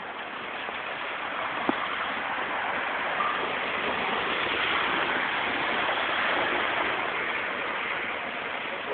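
Tyres hissing through water on a wet freeway, a steady spray noise that swells to a peak about halfway through and then eases off, as a vehicle goes by. A single sharp click about two seconds in.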